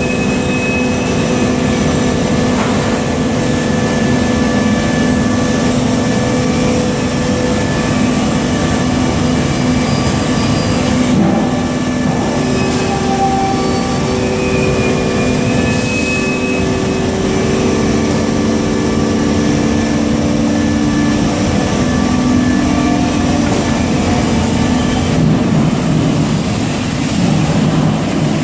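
Bano Premac 22-70 Hydro hydraulically driven single-shaft shredder and its feed conveyor running loud and steady while shredding copper transformer coils, with several steady whining tones over a dense rumble and a few sharp metallic clicks.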